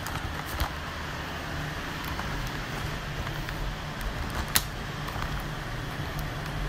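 Steady low background hum, with a few light clicks and one sharp click about four and a half seconds in.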